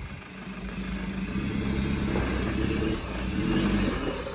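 Solid-axle Mahindra Thar's engine revving under load while rock crawling, getting louder over the first three seconds or so.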